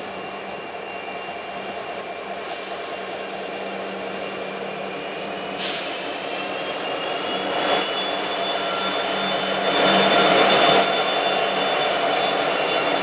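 Diesel locomotives at the head of a CN freight train approach and pass, their engines running with a steady low drone. The sound grows steadily louder and steps up about ten seconds in as the lead units come alongside. Thin high steady squeals ride over the top.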